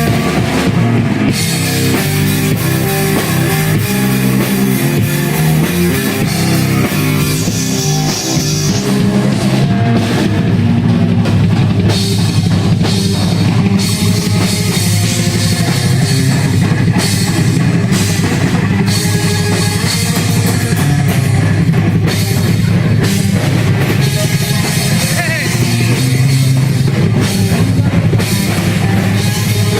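A rock band playing loud, heavy music: a full drum kit, distorted guitar and bass, steady throughout.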